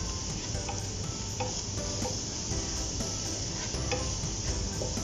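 Wooden spatula stirring and scraping fried elephant foot yam pieces and garlic, coated in pickle spice powder, around a nonstick pan, with light scraping ticks over a steady sizzle of the hot pan.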